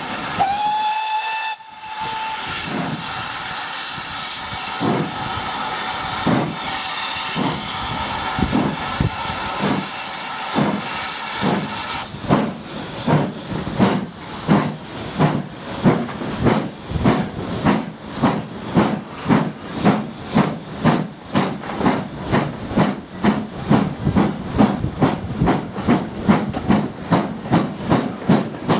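Steam locomotive whistle blown once, briefly, right at the start, then the locomotive hissing steam as it works the train. From about twelve seconds in its exhaust beats stand out in a steady, even rhythm of chuffs.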